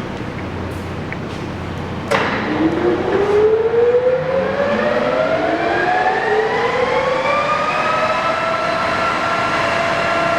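Mori Seiki MS850G engine lathe running: a clunk about two seconds in as the spindle is engaged, then the headstock whine rising in pitch as the spindle spins up, settling to a steady pitch near the end.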